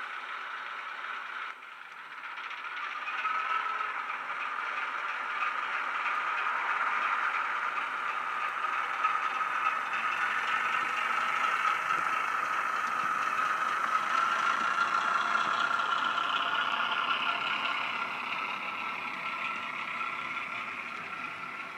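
A Class 08 shunter diesel engine sound file, recorded from a real vacuum-braked 08, plays through a model locomotive's small DCC decoder speaker. The engine note drops briefly about a second and a half in, then rises and runs steadily under load as the loco pulls away with its wagons. It eases off near the end.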